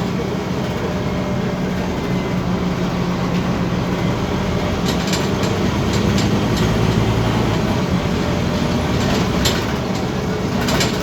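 Scania OmniCity city bus driving along: a steady low engine drone with road noise, and a few short rattling clicks about halfway through and again near the end.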